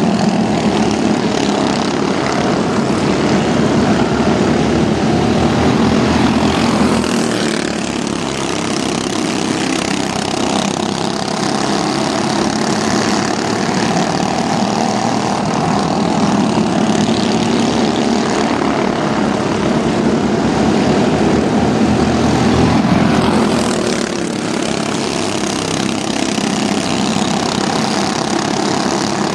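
Pack of mini stock pickup race trucks running together around an oval track, their engines a loud continuous drone. The sound swells as the pack comes by, around six seconds in and again just before twenty-three seconds, then eases back.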